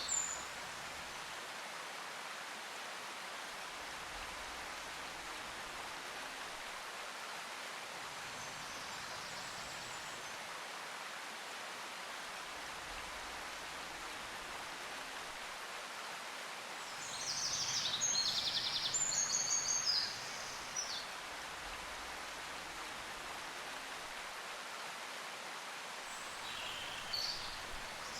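Steady outdoor background noise, an even hiss, with a bird chirping in a quick run of short high notes about seventeen seconds in and again briefly near the end.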